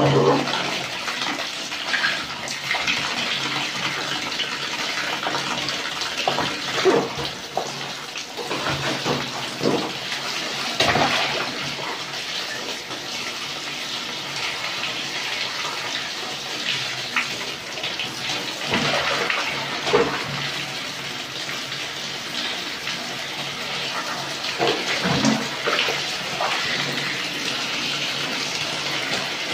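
Water running from a tap into a plastic basin of wet laundry, a steady splashing hiss. Over it come irregular sloshes and splashes as the soapy clothes are kneaded and trodden underfoot.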